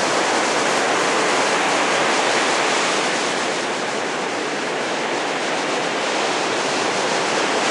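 Ocean surf breaking: a steady, even rush of whitewater with no separate crashes standing out.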